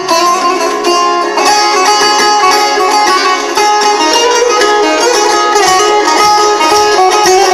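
Balalaika-style triangular plucked string instrument, amplified, playing a fast melody of short, quickly changing notes under rapid picking strokes.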